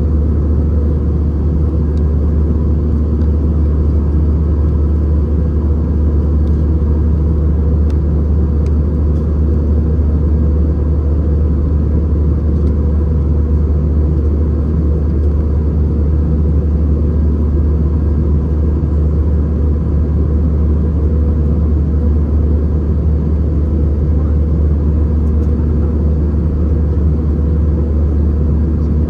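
Steady cabin noise inside an Airbus A319-111 airliner in flight: a constant deep rumble of engines and airflow with faint steady tones above it, unchanging throughout.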